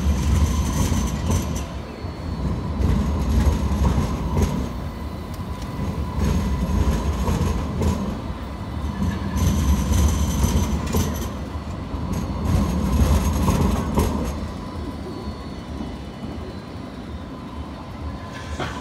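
Alstom Citadis X05 light-rail tram rolling past: a low rumble that swells and eases, with the wheels clicking sharply over the rail crossings several times and a high wheel squeal. It fades somewhat after about fifteen seconds.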